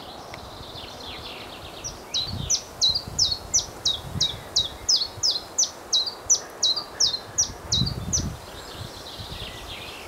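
Common chiffchaff singing its song: a run of about eighteen short, sharp, falling notes at roughly three a second, starting about two seconds in and stopping after about eight seconds. Wind gusts rumble on the microphone and birch leaves rustle underneath.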